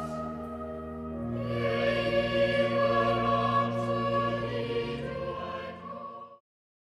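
Sacred choral music with organ: a choir holding slow, sustained chords over the organ, a low bass note joining about a second in. The music cuts off abruptly near the end.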